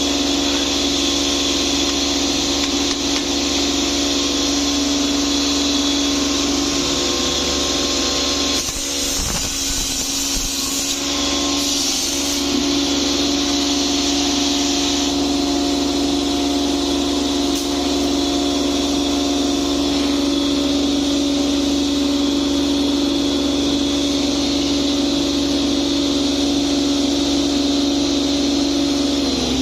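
Electric motor of a bamboo satay-skewer cutting machine running steadily with a constant hum, with a few seconds of rougher noise about nine seconds in.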